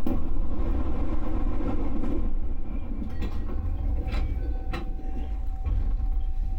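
Electric train running on the JR Nara Line, with two sharp clacks over the rails about four seconds in. Right after the second clack a steady high tone joins the running noise.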